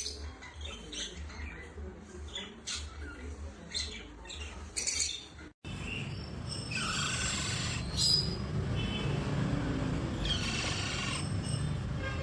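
Parrot chirping and squawking. About halfway through the sound cuts out abruptly, and louder calls of about a second each follow over a steady low rumble.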